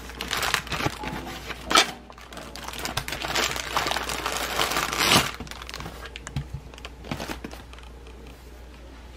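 Clear plastic packaging crinkling and crackling as it is pulled off a phone stand, busiest for about the first five seconds, then quieter handling with a few light clicks.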